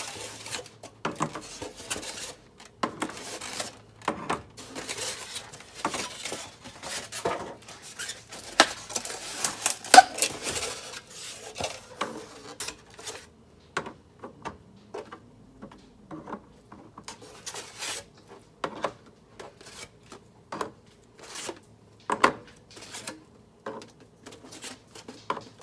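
Eggs being set one by one into an egg holder: a long run of irregular light clicks and taps of shells and container, with one sharper clack about ten seconds in.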